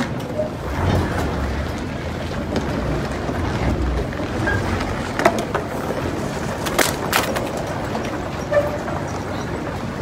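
Wind rumbling on the microphone, with a few sharp knocks in the second half.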